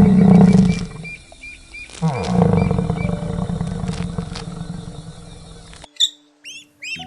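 A large animal's deep, loud calls: one that breaks off about a second in, then another that slides down in pitch and fades away over several seconds. Near the end it cuts to high, repeated chirping calls.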